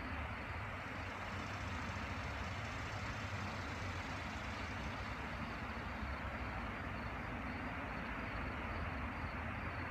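River rapids running over rocks: a steady rushing of white water with a low rumble underneath.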